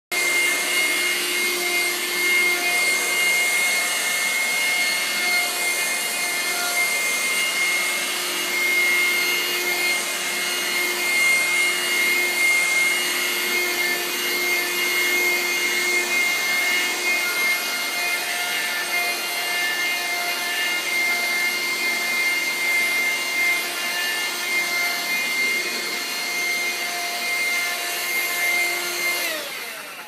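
Vacuum cleaner running steadily with a high whine while its nozzle is drawn over a dog's coat; the lower note shifts now and then. Near the end the motor switches off and the whine falls away.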